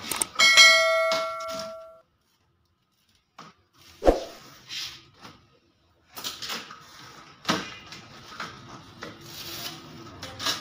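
A bright ringing chime with several overtones that fades out over about a second and a half, then a gap, a single thump about four seconds in, and from about six seconds on the rustling and scraping of a cardboard TV box being handled and opened.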